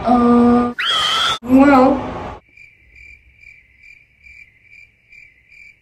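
A woman's muffled whimpering and moaning, with a short high squeal that rises sharply about a second in. Then a cricket chirps steadily and faintly, about two and a half chirps a second, over otherwise dead silence.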